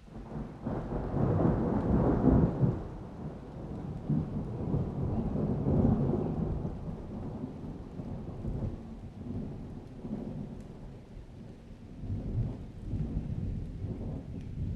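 Rolling thunder rumbling in long swells over falling rain: a heavy roll peaks a couple of seconds in, a second comes around the middle, and the thunder fades before building again near the end.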